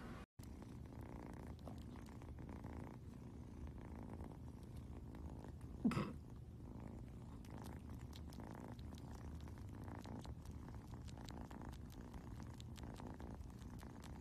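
Kitten purring steadily, a low continuous rumble, while it suckles on a fluffy blanket, with faint clicks through it. One brief louder sound comes about six seconds in.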